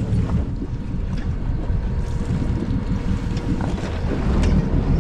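Wind buffeting the microphone on a boat at sea, a steady uneven rumble with the wash of sea water around the hull underneath.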